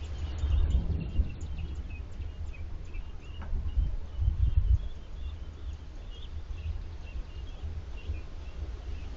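Faint, short, high bird chirps repeating over a low rumble that swells about half a second in and again around four seconds in.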